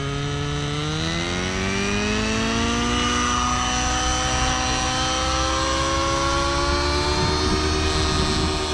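Nitro RC helicopter's OS 55 AG glow engine with a tuned pipe spooling up from idle, its pitch rising steadily for several seconds and then levelling off as the rotor head reaches flying speed and the helicopter lifts off.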